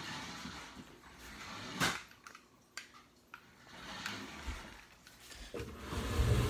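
Small electric RC stunt car running across a tile floor: a hissing whir of its motor and wheels, with a sharp knock about two seconds in and a few lighter clicks after. A low rumble builds near the end.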